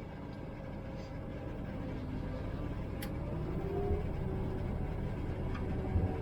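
Combine harvester's engine running steadily, growing gradually louder, with a single click about three seconds in.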